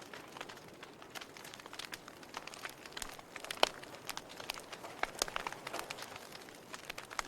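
Wood fire crackling in a fireplace: a steady hiss under irregular sharp pops and snaps, one louder pop a little past the middle.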